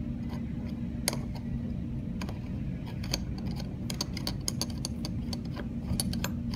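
Light, irregular metallic clicks and scrapes as a retaining nut is turned by hand onto the threads of a Lynx stainless faucet body over a newly fitted cartridge.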